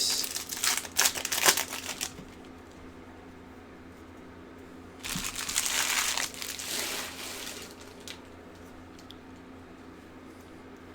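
Foil wrapper of a hockey card pack being torn open and crinkled, in two bursts: one at the start lasting about two seconds, and another about five seconds in.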